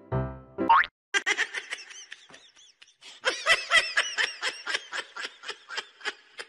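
High-pitched laughter in a quick run of pulses, starting about a second in after a short rising whoop, thinning briefly and then running on densely.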